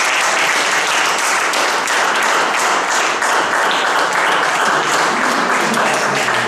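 A small audience applauding, many hands clapping at an even, steady level.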